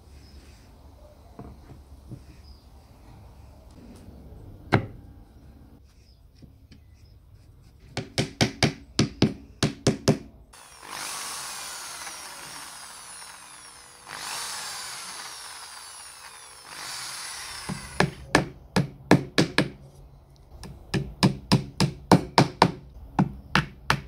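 Quick strings of sharp taps from a small hammer striking oak, then an electric drill boring into the oak for several seconds in two stretches with a short break between. After the drilling come more strings of hammer taps.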